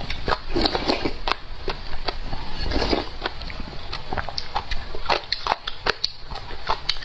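Close-up chewing and biting of pickled shredded papaya: many irregular, sharp crunching clicks with wet mouth sounds.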